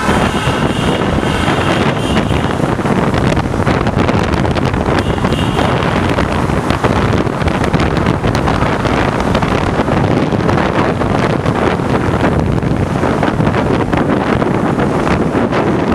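Steady wind buffeting on the microphone while riding at highway speed on a motorcycle, with engine and road noise underneath.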